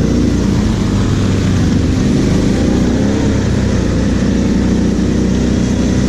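Kawasaki KFX 700 quad's V-twin engine running under way, heard from on board, with small rises and falls in revs.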